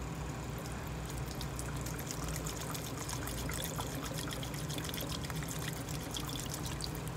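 Acetone thinner trickling in a thin stream from a metal can into a plastic mixing cup of paint. A steady low hum runs underneath.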